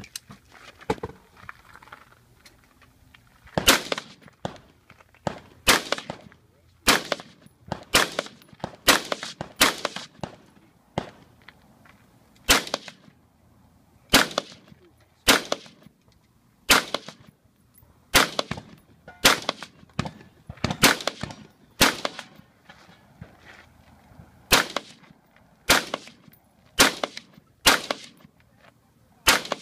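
AR-15-style rifle firing a steady string of single shots, about one a second, starting a few seconds in, as it engages far targets during a 3-gun stage.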